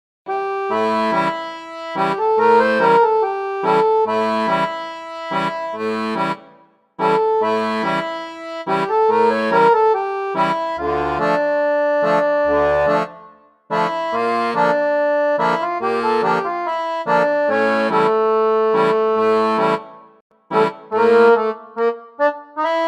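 Instrumental background music: held melody notes over a repeating bass pattern, breaking off briefly about six and a half, thirteen and a half and twenty seconds in, then short detached notes near the end.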